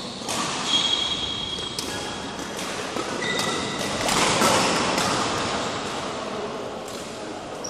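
Badminton rally: a string of sharp racket hits on the shuttlecock, with sneakers squeaking briefly on the court floor, echoing in a large sports hall.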